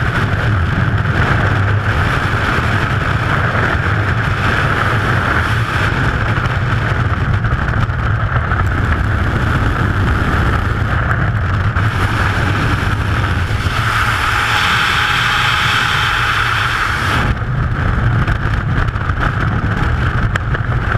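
Skydiving freefall wind rushing and buffeting across a helmet-mounted camera's microphone, loud and steady; the higher hiss drops away a few seconds before the end.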